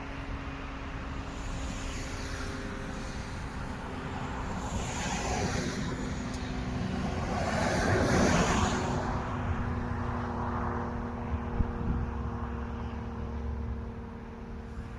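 A vehicle passing by: its noise swells to a peak about eight seconds in and fades away, over a steady low hum.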